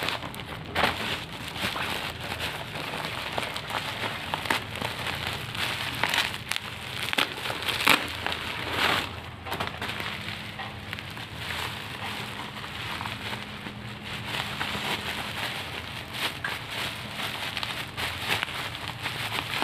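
Steady rain pattering, with irregular louder drips and crackling drops among it.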